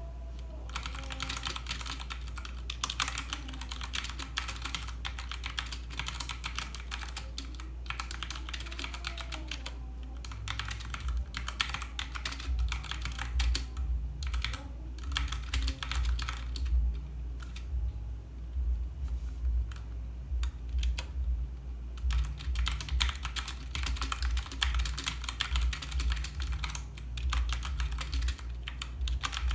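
Typing on a Redragon Kumara mechanical keyboard with tactile Outemu brown switches: a continuous, irregular run of keystrokes that gets denser and louder from about ten seconds in, with a steady low hum underneath.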